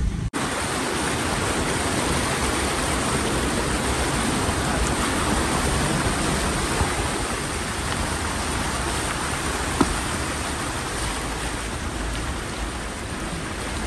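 Steady rush and splash of flood water pushed aside by a Toyota Fortuner's front tyre as the SUV wades through a flooded street, heard close to the wheel.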